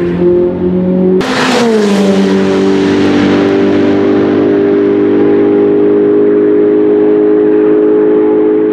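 Ferrari 488 Challenge race car's twin-turbo V8 at full throttle, passing close with a sharp burst of noise about a second in. Its note drops in pitch, then holds a steady high note as the car pulls away down the straight.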